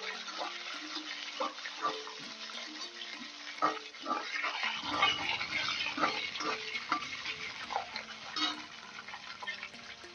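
Flat steel spatula scraping and knocking against a steel kadhai while stirring peanuts, green chillies, ginger and curry leaves frying in oil, with a light sizzle that grows about halfway through.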